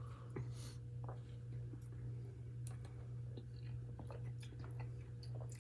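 Close-up mouth sounds of a person eating and drinking: soft, scattered clicks and smacks over a steady low hum.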